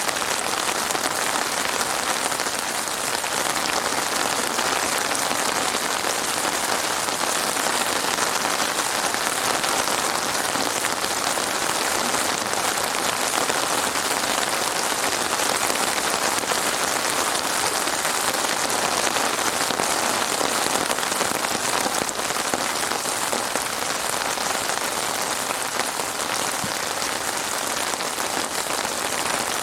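Heavy rain falling steadily on a surface, a dense, even patter of drops.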